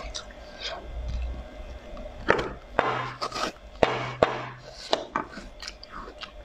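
Frost-coated frozen cucumbers being handled, rubbed and knocked, with several sharp cracks or knocks from a little after two seconds in to about five seconds in.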